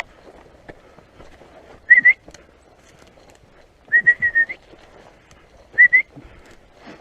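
A hunter whistling signals to a pointing dog: short whistle blasts, two about two seconds in, a quick run of four about two seconds later, then two more near the end, each ending on a slight upward lift in pitch. Faint footsteps on the ground sound underneath.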